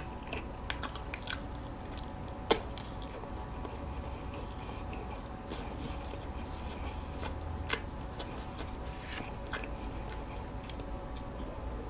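Close-miked chewing of soft walnut cakes (hodugwaja): soft wet mouth sounds and small lip clicks, with one sharper click about two and a half seconds in.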